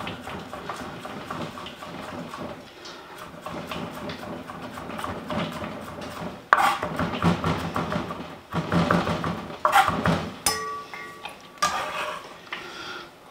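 Chef's knife chopping gherkins on a wooden cutting board: a run of quick knocks of the blade against the wood.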